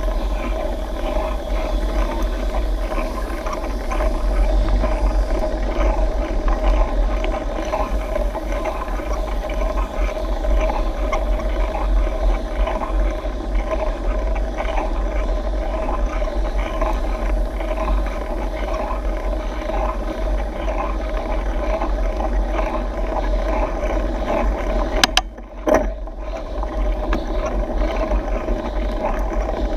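Riding noise of a mountain bike climbing a concrete road, picked up by a handlebar-mounted camera: a steady low rumble with constant road and bike noise, and a sharp click about 25 seconds in followed by a brief drop in the noise.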